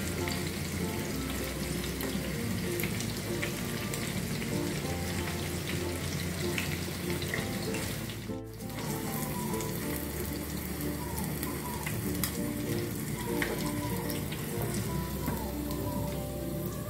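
Coated chicken strips deep-frying in a saucepan of hot oil, a steady sizzle full of fine crackles, under background music with a repeating bass line. Everything briefly drops out about eight seconds in.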